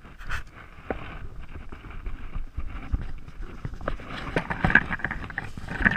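Footsteps crunching through dry fallen leaves, with irregular twig snaps and branches brushing past while walking through dense brush.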